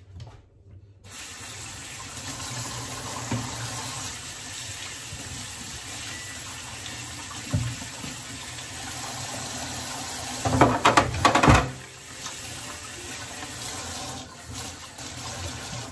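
Kitchen tap running into the sink as hands are rinsed under the stream; the flow starts about a second in and runs steadily, with a brief, much louder burst of splashing about two-thirds of the way through.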